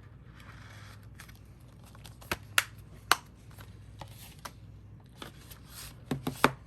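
Plastic Blu-ray case being handled: a soft rustle near the start, sharp clicks about two and a half and three seconds in, and a quick run of clicks near the end.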